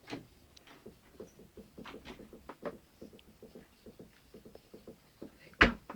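A person clicking their teeth together in a quick, uneven run of small clicks, with one much louder knock near the end.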